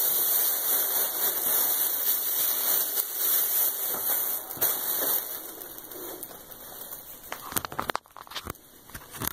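Thin plastic shopping bag crinkling and rustling as it is gathered and tied in a knot; the rustling dies down about halfway through, and a few sharp clicks and knocks follow near the end.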